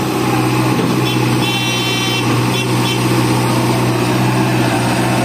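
Heavy diesel engine running steadily with an even, unbroken drone.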